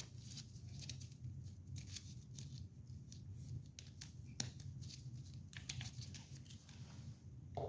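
Scattered faint clicks and scrapes of hands handling the soldering gun and its cord as it is plugged in, over a low steady hum.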